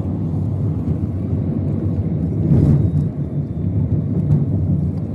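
Steady low rumble of a passenger jet heard from inside the cabin, growing briefly louder about two and a half seconds in.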